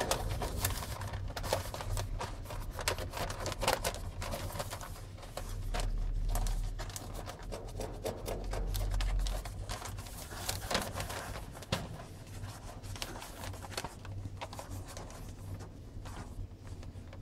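Newspaper crinkling and rustling with irregular scratchy clicks as a kitten scuffles with a hand on the sheets, under a low hum and a stronger low rumble from about six to nine seconds in.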